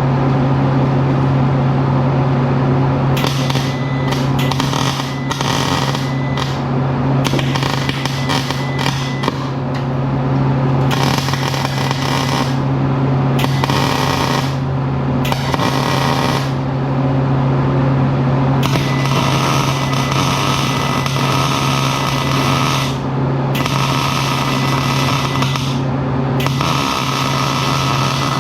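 Arc welding in a run of short beads: a crackling hiss that starts and stops again and again, over a steady low hum.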